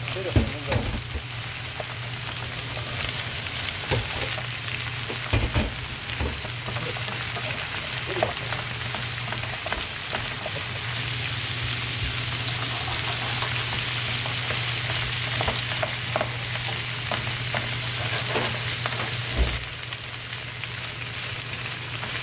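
Oil sizzling in a frying pan as chopped green onion is fried into scallion oil and eggs fry, with scattered knocks and scrapes of a spatula against the pan. A steady low hum runs underneath, and the sizzle changes character twice.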